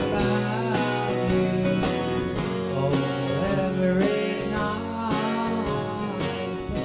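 Country-folk song with strummed acoustic guitar keeping a steady beat of about three strokes a second, and a sustained melody line above it.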